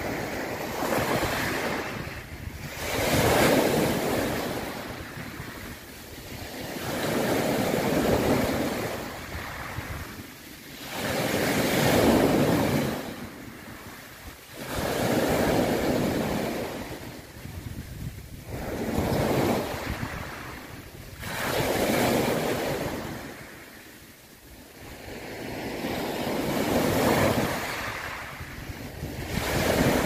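Sea waves rushing and washing, swelling and ebbing in repeated surges every three to five seconds.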